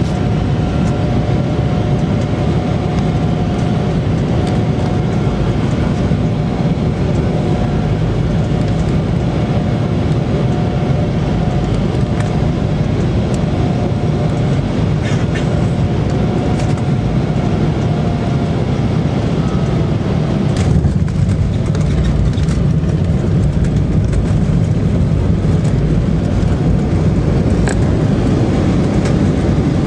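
Cabin noise of an Embraer 190's CF34 turbofans on final approach: a steady roar with a held whine. About two-thirds of the way through, the jet touches down with a knock and rattle, and the roar grows a little as it rolls out on the runway.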